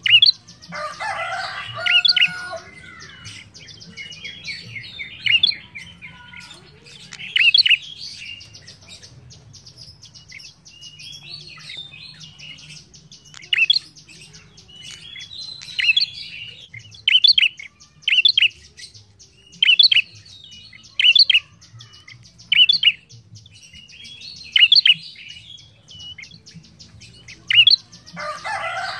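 Ashy tailorbird (prenjak) calling: loud, sharp notes repeated every second or so, with fuller chattering bursts near the start and again near the end.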